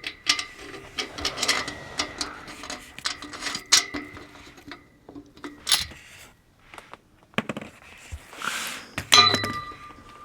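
Metal clinks and knocks as kayak-rack frame parts, screws and nuts are handled and fitted together, with a few short ringing tones from struck metal about nine seconds in.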